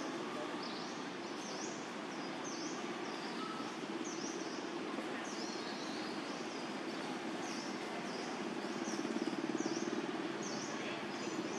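Outdoor ambience: a bird repeats a short, high, sweeping note over and over, a little faster than once a second, over a steady low hum and hiss.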